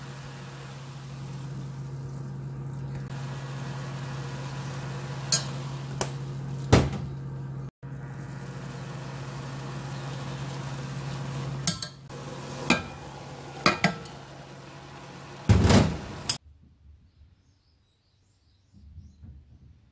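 A steady hum from an electric cooktop heating a stainless-steel pot of bean sprouts. A metal spoon clinks against the pot as the sprouts are stirred, a few times in the middle and more in the last part. Both stop suddenly about three-quarters of the way through, leaving near quiet.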